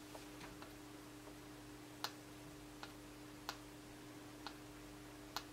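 Faint computer mouse clicks: about six sharp single clicks a second or so apart, over a steady low hum.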